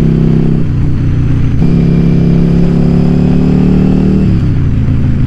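Yamaha Virago XV750's V-twin engine under way on the road. The engine note dips about half a second in, then pulls steadily with a slowly rising pitch from about a second and a half in, and drops away as the throttle is eased off a little after four seconds.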